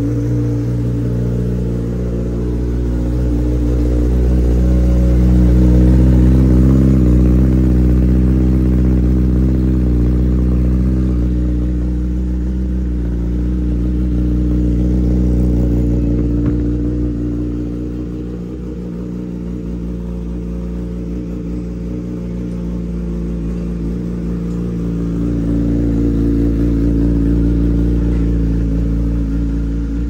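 Kawasaki ZX-10R's inline-four engine idling steadily, with a gentle rise and fall in loudness.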